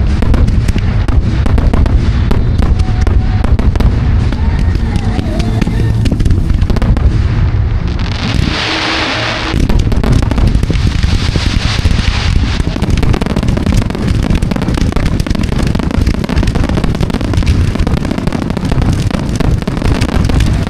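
A dense fireworks barrage: many rapid bangs overlapping without a break. About eight and a half seconds in comes a loud hissing crackle lasting about a second.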